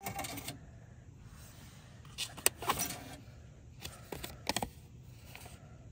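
Parking permit pay station printing a paper permit, with three short clusters of clicks and paper rustle as the ticket comes out and is taken from the slot, over a steady low hum.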